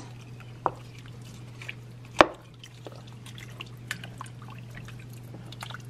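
Wooden spoon stirring broth full of sliced vegetables in an enamelled cast-iron pot: the liquid dripping and lapping in small scattered ticks, with one sharp knock about two seconds in.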